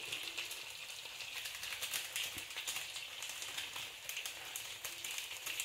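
Small sachet of noodle masala powder crinkling and being tapped as the powder is shaken out into a bowl: a steady patter of small crackles and ticks.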